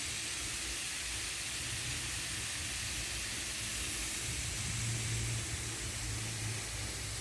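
Lawn sprinklers spraying: a steady hiss, with a low hum rising about four seconds in.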